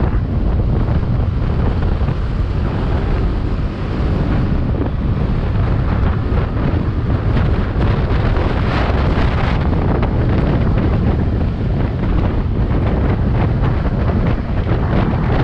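Heavy wind buffeting the microphone of a camera on a scooter ridden at about 70 to 80 km/h: a steady, deep rushing that flutters without let-up.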